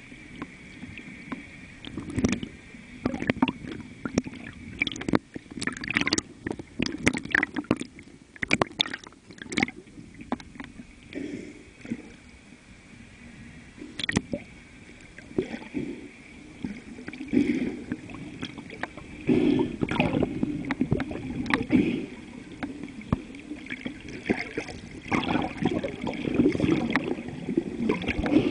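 Water sloshing and gurgling around a camera at the sea surface, with a run of sharp clicks and knocks in the first ten seconds or so and louder, busier sloshing over the second half.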